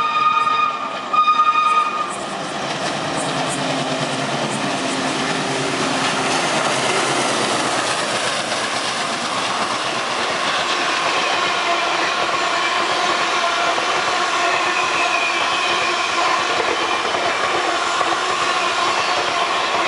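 Alco WDG 3A diesel locomotive's horn sounding for the first two seconds with a short break about a second in. The locomotive's engine note then drops in pitch as it passes at speed, and the coaches follow, rolling by with wheels clattering over the rail joints.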